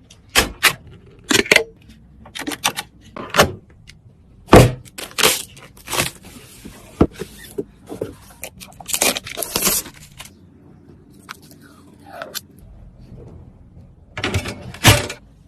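Irregular clicks, knocks and short scrapes of computer parts being handled and fitted together during a PC build, with a brief falling tone a little after the middle.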